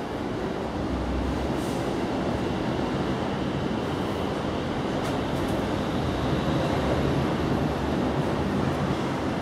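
Steady low rumble of background vehicle noise.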